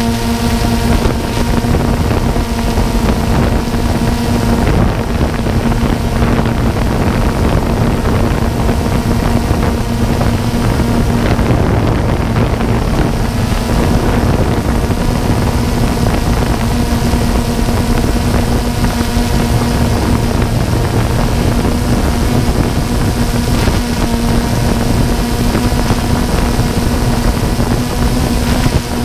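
DJI Phantom 2 quadcopter's motors and propellers humming steadily at one pitch, with wind buffeting the microphone.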